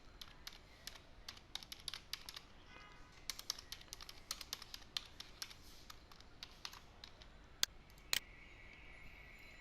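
Typing on a computer keyboard: a run of quick key clicks while login details are entered, then two louder single clicks about eight seconds in, followed by a faint steady high whine.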